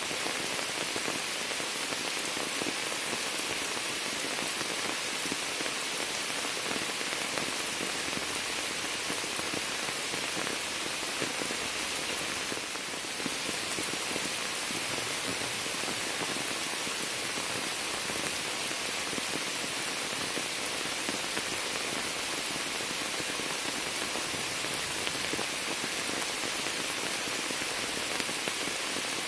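Steady rain falling on a sheet of standing water and the leaves of a shrub, an even, continuous patter.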